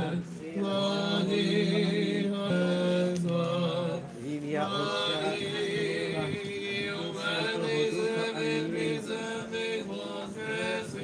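Church chant sung by voices, without words being spoken: a low male voice holds steady notes that step up and down, then higher voices carry a moving melody from about four seconds in.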